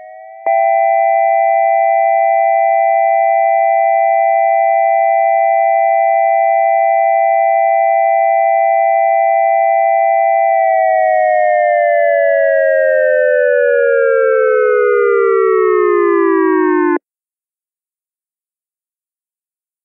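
Synthesized dual-tone electronic siren from an ASC digital siren controller sounding its Alert signal: two close pitches, with overtones, jump louder about half a second in and hold steady for about ten seconds. Then both glide down together for about six seconds and cut off abruptly, leaving a few seconds of silence.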